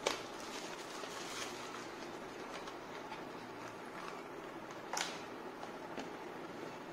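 Faint rustling of unboxing packaging: a cable in a plastic bag and paper inserts being handled in a card box, with a sharp click about five seconds in.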